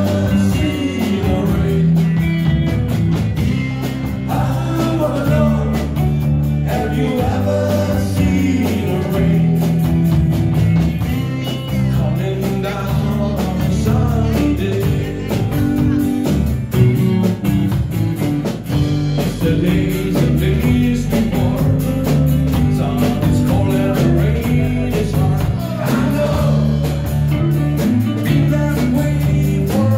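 Live rock and roll band playing: semi-hollow electric bass and Telecaster-style electric guitar over a drum kit, with a man singing lead into a microphone.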